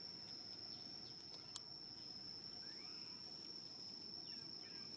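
A steady, high-pitched insect drone, with a single sharp click about one and a half seconds in and faint chirping calls around the middle and near the end.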